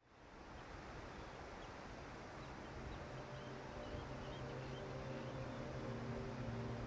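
Outdoor ambience fading in: a steady, even noise with faint bird chirps. About two seconds in, a low held music drone enters and builds as more sustained notes join it.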